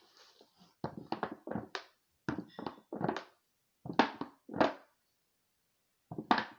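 A series of short, dull thunks and knocks in several quick bunches, from a cut plastic milk jug being handled and fitted.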